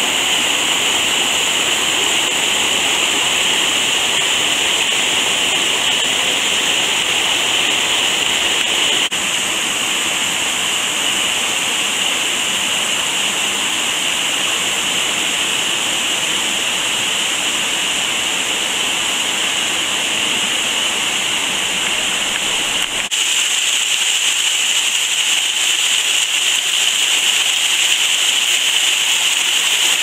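Steady rush of water from a rocky stream cascading down toward a waterfall. About three-quarters of the way through, the sound changes abruptly: it loses its low rumble and becomes slightly louder.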